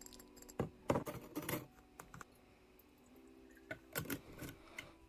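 Irregular light clicks and taps, some in short quick clusters, from small items being handled.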